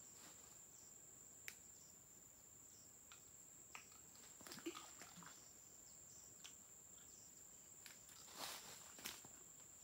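Faint, steady high-pitched insect drone, with scattered light clicks and rustles. The loudest clicks come around the middle and near the end.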